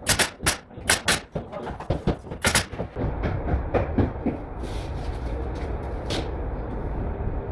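Several sharp bangs in quick succession in the first few seconds, like a pneumatic nail gun firing into framing, followed by a steady low machine rumble with a few lighter clicks.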